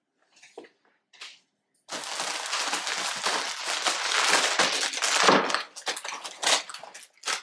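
Plastic Oreo cookie packages crinkling as they are handled and shuffled in a pile on a table: a few faint rustles, then about two seconds in a dense crackle for several seconds, breaking into separate crinkles near the end.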